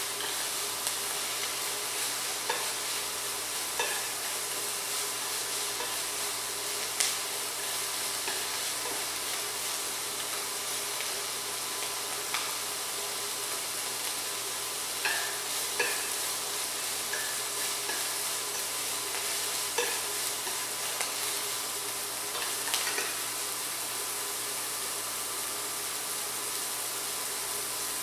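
Chopped Chinese celery and dried tofu sizzling as they stir-fry in a nonstick pot, turned with wooden chopsticks that give a short knock against the pan every few seconds.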